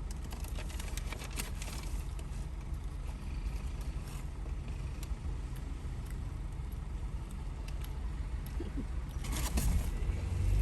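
Steady low rumble of a moving car heard from inside the cabin, with a few light clicks and rustles, a cluster of them near the end.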